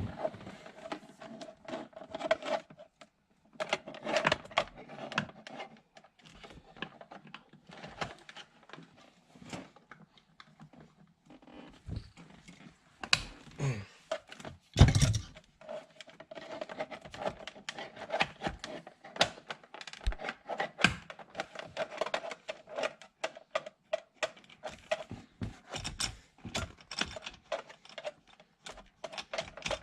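Hand-tool work on a BMW E36's steering-wheel airbag bolts with a T30 Torx screwdriver: irregular small clicks and taps of metal on metal, with one louder thump about halfway through.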